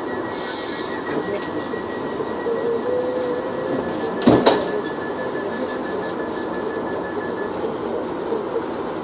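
Commuter train running, heard from inside the carriage: a steady rumble with a faint whine of steady high tones that fades out late on. Two sharp knocks in quick succession about four seconds in.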